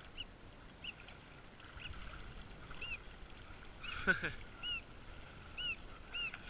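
A bird calling repeatedly: short chirps that rise and fall, about one a second. About two thirds of the way through comes one brief sound that falls steeply in pitch.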